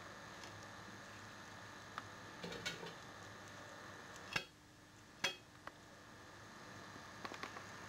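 Knife cutting through a raw chicken breast on a chopping board: faint wet squishing and scattered light clicks, with two sharper knocks about halfway through, over a steady background hum.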